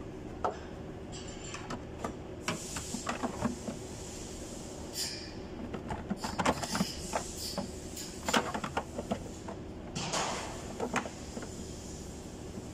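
Irregular clicks, taps and light clatter of hands handling plastic parts in a car's engine bay, over a steady low hum.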